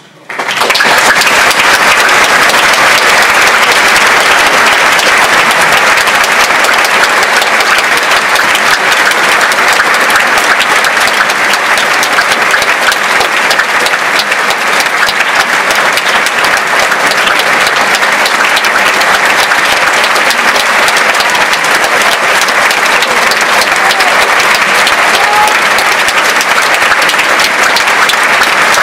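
Concert hall audience applauding at the close of an orchestral and choral performance. The clapping starts suddenly out of silence about half a second in and then holds loud and steady.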